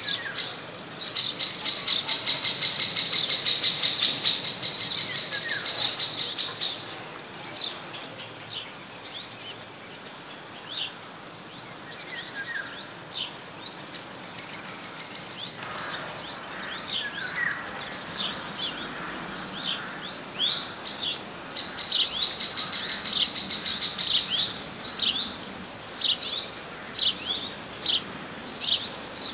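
Small songbirds calling and singing: a rapid high trill held for a few seconds near the start and again near the end, among many short, quick high chirps, over a faint outdoor hiss.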